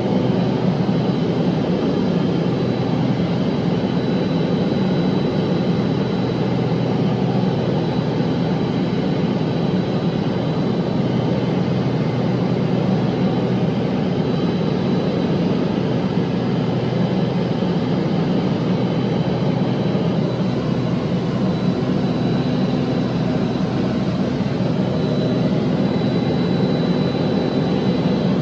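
A light plane's engine and propeller drone, heard from inside the cabin in flight. The drone holds steady and unchanging throughout.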